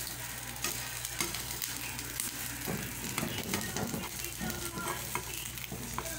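An egg omelette sizzling in a frying pan, with a metal skimmer scraping and tapping against the pan and over the top of the omelette, making scattered short clicks.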